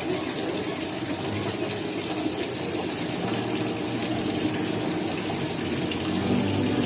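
Thin streams of water from three wall-mounted fountain spouts splashing steadily into a stone pool.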